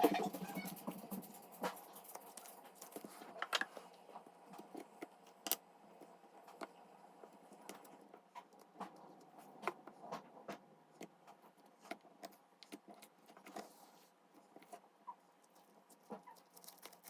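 Faint, irregular small clicks and taps, scattered through, with a louder cluster at the start.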